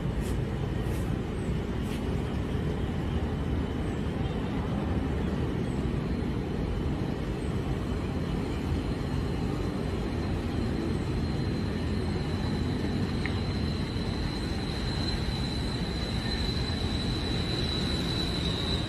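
Steady low rumble of outdoor background noise, with a faint high steady whine that grows stronger in the second half.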